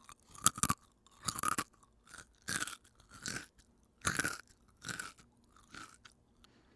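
Someone chewing a mouthful of potato chips, a run of crisp crunches about one to two a second that grow softer as the chips are chewed down.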